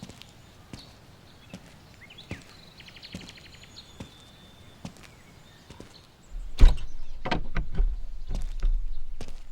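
Slow, even knocks like footsteps, about one a second, then from about six seconds in a much louder, deep wooden rumble with several sharp knocks.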